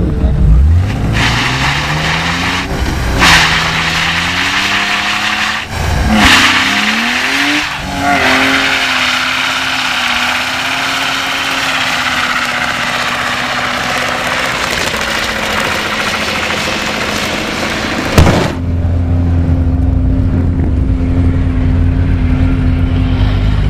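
BMW 328i's straight-six engine revving hard while the rear tyres spin on asphalt in a burnout, with the engine's pitch rising and falling over a loud hiss of spinning, smoking tyres. About 18 seconds in, the tyre noise cuts off at a sharp bang and the engine settles to a steady, lower running note.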